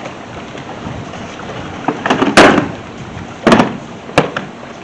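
Nested toolboxes being handled and pulled apart: a few knocks and clatters about two seconds in and again about three and a half seconds in, then a single sharp click.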